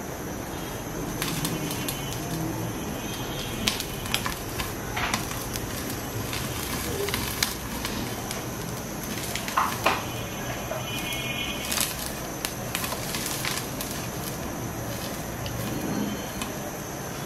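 Corn kernels popping in hot oil in a lidded pot on a gas burner: scattered, irregular sharp pops over a steady hiss.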